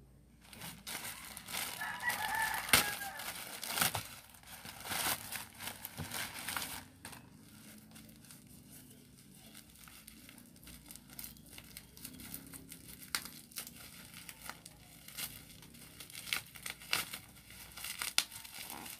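Plastic packaging crinkling and tearing as a parcel pouch is opened and a black plastic wrapping is peeled off by hand, loudest in the first seven seconds, then softer crinkling. A brief pitched call is heard about two seconds in.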